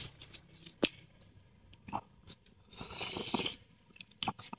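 Quiet eating sounds: a sharp click, a few small mouth and utensil clicks, then a hissing slurp of noodle-soup broth from a spoon lasting under a second, about three seconds in.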